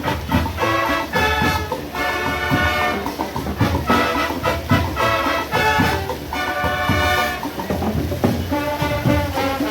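A parade band plays with brass and drums: phrases of held horn notes over a steady percussion beat.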